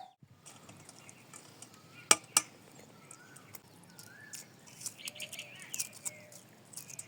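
Faint birds chirping with short gliding calls over a quiet rural background, with scattered light ticks and two sharp clicks about two seconds in.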